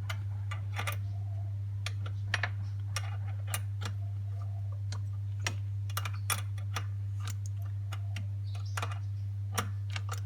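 Irregular sharp clicks and taps of hand tools and small metal parts, from work on a personal watercraft's forward and reverse gate linkage, over a steady low hum.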